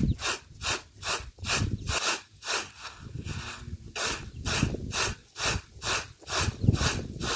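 Dried maize kernels winnowed in a flat woven basket tray: a rhythmic swish of grain tossed up and caught, about two to three strokes a second.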